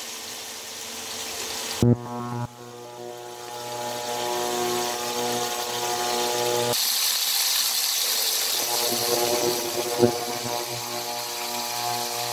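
Chicken pieces sizzling in oil in a stainless steel pan, with a steady droning hum of several tones underneath. The hiss grows louder for a couple of seconds about seven seconds in, and there are a couple of short knocks.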